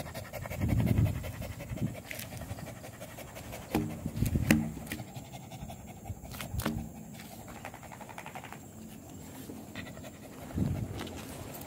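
A dog panting with its tongue out, steady open-mouthed breathing. A few short pitched sounds and sharp clicks come in around four seconds in and again a little later.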